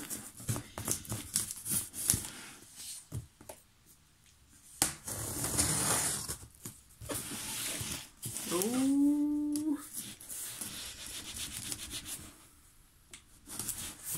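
Kitchen knife slicing and scraping through packing tape on a cardboard box, with cardboard rubbing and tape tearing in irregular strokes. A short pitched sound rises and then holds for about a second, about nine seconds in.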